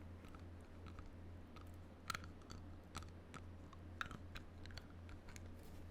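Teeth biting and chewing on the end of a hard object held in the mouth, close to the microphone: irregular sharp clicks and crunches, loudest about two seconds in and again about four seconds in.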